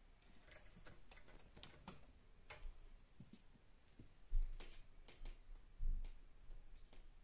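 Faint light clicks and ticks of a cat's claws on a wooden floor as it walks, with two soft low thumps about four and six seconds in. No meowing or hissing.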